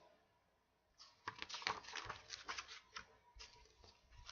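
Faint run of quick light clicks and rustles, a flurry lasting about two seconds that starts about a second in, with a few more taps near the end.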